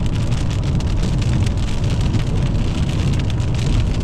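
Rain hitting a moving car, heard from inside the cabin, over a steady low road and engine rumble.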